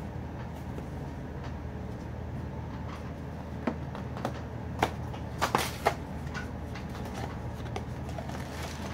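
Toy packaging being handled and opened: a quick run of sharp clicks and crinkles about halfway through, over a steady low hum.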